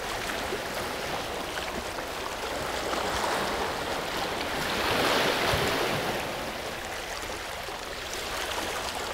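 Small sea waves washing against shoreline rocks, a steady wash that swells once about halfway through.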